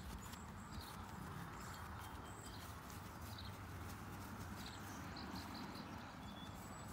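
Ridden horse walking on grass with soft hoofbeats, while small birds chirp in short repeated calls.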